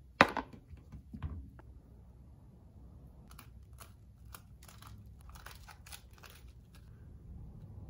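A couple of knocks near the start, then a kitchen knife scraping red bell pepper seeds off the core onto a paper towel, with scattered light clicks and crinkles.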